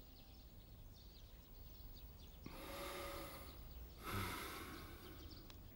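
An elderly man breathing heavily: two long, noisy breaths about a second apart, the second starting with a sharper intake.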